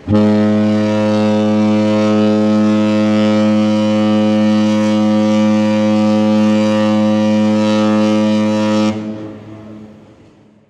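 Disney Fantasy cruise ship's horn sounding one long, steady blast of a single low pitch for about nine seconds, then stopping, with its echo dying away over a second or so.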